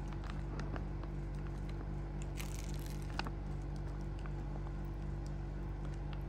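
Thin plastic drinking-water pouch from a self-heating rice kit crinkling and crackling as it is squeezed and pinched open by hand, with scattered small clicks.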